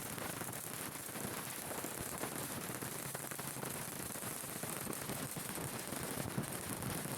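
Welding arc crackling steadily, a dense rapid sputter of fine clicks.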